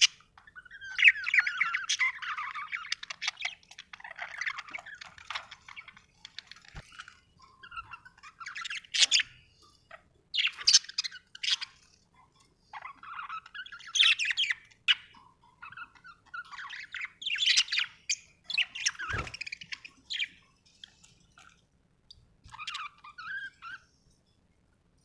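Budgerigars chirping in bouts of a second or two with short pauses between them, and a low thump about three-quarters of the way through.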